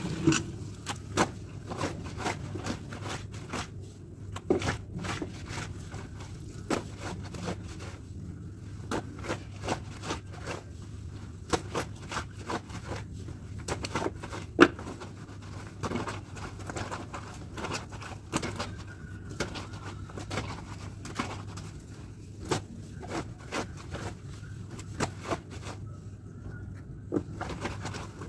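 Clothes being washed by hand: wet fabric scrubbed, squeezed and handled in a steel bucket and on a floor pile, giving irregular scraping and rustling with many short clicks and knocks. A steady low hum runs underneath.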